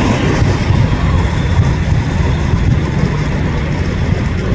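A heavy engine running with a steady, loud low rumble.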